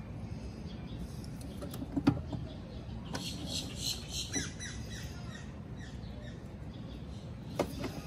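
Handling sounds as a poker chip is set into a wooden drill-press jig: a sharp knock about two seconds in, squeaky rubbing for a second or so after it, and a couple of knocks near the end, over a steady low hum.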